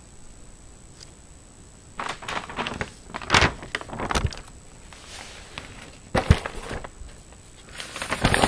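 Handling noise from a handheld camera being picked up and turned: sharp bumps and rustles in three bursts, the first about two seconds in, another about six seconds in and a last one near the end.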